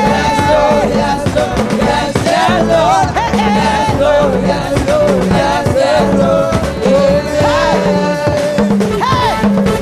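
Live gospel praise music played loud with a steady drum beat and a woman singing lead into a microphone.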